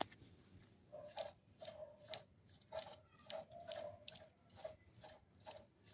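Worn front wheel bearing turned by hand, giving short, faint, rough grinding rasps, about ten in a row at an uneven pace. The bearing has no play but is noisy, the sign of a failed bearing.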